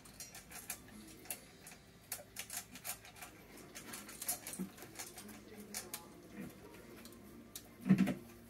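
Dogs eating dry food from their bowls: rapid, irregular small clicks and crunches of kibble. A short louder sound comes near the end.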